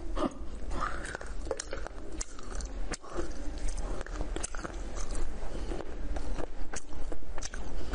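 Close-miked chewing of a soft, chewy candy on a stick, with many scattered small mouth clicks; the candy is very chewy.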